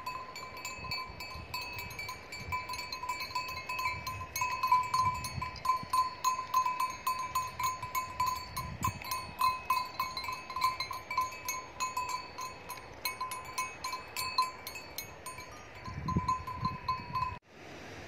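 Bells on grazing livestock ringing over and over in an uneven jingle, several strikes a second. The jingle cuts off suddenly near the end.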